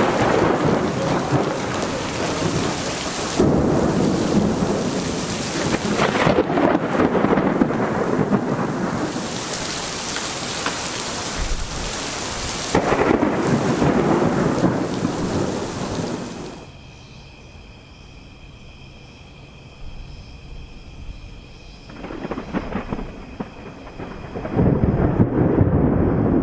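Heavy rain with repeated rolling thunder, swelling and fading several times. About two-thirds of the way through the sound drops suddenly to a much quieter stretch with a faint steady hum, and a loud rumble of thunder returns near the end.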